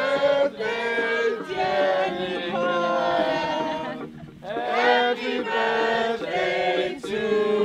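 A group of voices singing a birthday song together.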